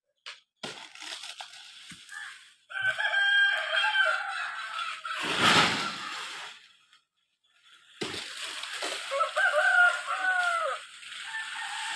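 A rooster crowing twice, each crow lasting two to three seconds, with a short rushing burst of noise between the two crows.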